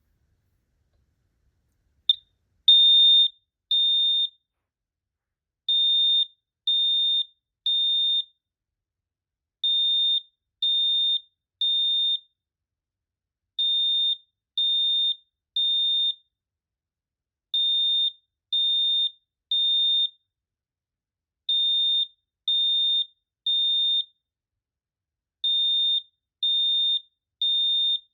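Potter MHT-1224W (Gentex GX-93W) fire alarm mini horn sounding a high-pitched tone in the temporal-3 evacuation pattern: three short beeps, a pause, then three again, repeating. It starts about two seconds in, just after a brief blip.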